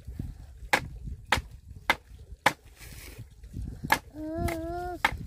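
Rhythmic chopping, a blade striking down onto wood about every 0.6 s with a short pause midway. From about four seconds in, a voice holds long drawn-out notes between the strokes.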